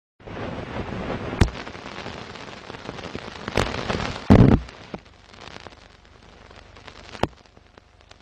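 Crackle and hiss of old film stock with scattered sharp pops and clicks, the sound of a vintage film-leader countdown. There is a louder thump about four seconds in, after which the hiss drops to a faint crackle.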